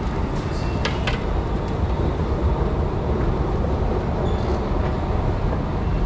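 Steady low rumble of an underground railway station, swelling slightly over the first couple of seconds, with two short sharp clicks about a second in.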